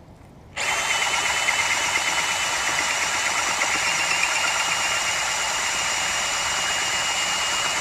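A power tool running steadily under load, with a high whine, starting about half a second in and running for about seven seconds.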